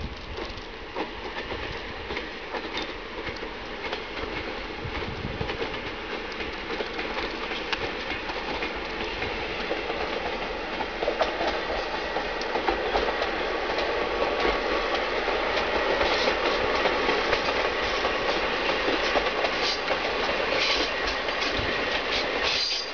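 Diesel train of KiHa 58 and KiHa 65 railcars hauling open wagons running along the line, the rumble and wheel clicks growing steadily louder as it approaches.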